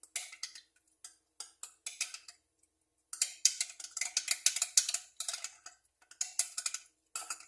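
A spoon stirring honey into onion water in a container, clicking against its sides in quick runs of ticks with short pauses, busiest about halfway through.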